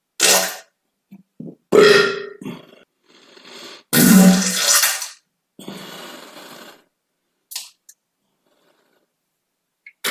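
A run of farts: about eight separate blasts of varying length, some with a low buzzing pitch and others breathy and airy. The loudest and longest comes about four seconds in and lasts about a second.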